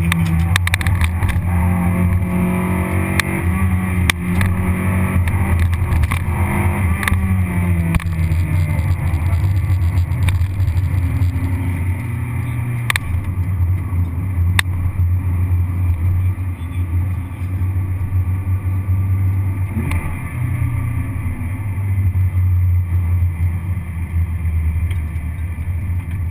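Toyota Vitz RS race car's engine heard from inside the cabin under hard driving on track, its pitch rising and falling with the throttle, over constant road and wind noise. Two sharp clicks stand out about halfway through.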